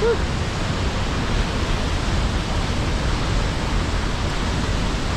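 Steady rushing noise of a waterfall and the rapids below it, even and unbroken.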